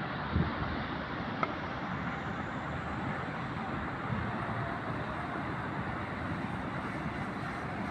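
Steady outdoor rumble of distant road traffic, with two faint knocks about half a second and a second and a half in.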